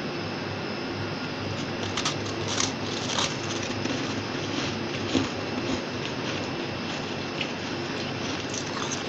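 A person biting into and chewing fluffy freezer frost: a few short, soft crunches, the sharpest about five seconds in, over a steady background hiss.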